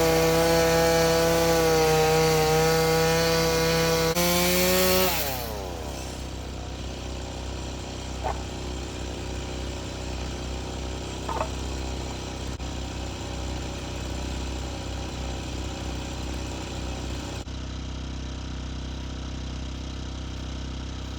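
Two-stroke chainsaw running at high revs under steady load, cutting firewood; about four seconds in its pitch rises, then it winds down and stops a second later. After that there is a quieter steady background with two light knocks.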